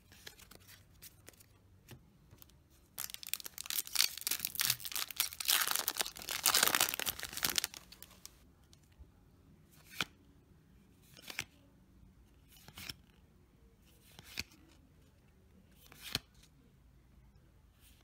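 A foil Yu-Gi-Oh booster pack being torn open, a crinkling rip lasting several seconds, from about 3 s in. After that, single cards are flicked off the stack one at a time, a short snap about every second and a half.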